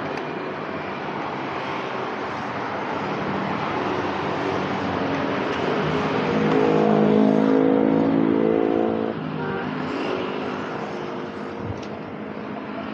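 Steady road traffic noise, with a vehicle's engine passing close and loudest from about six to nine seconds in, then dropping away.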